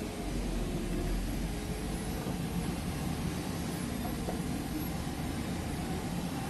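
Eicher truck's diesel engine running steadily, heard from inside the cab while the truck drives along a rough dirt road.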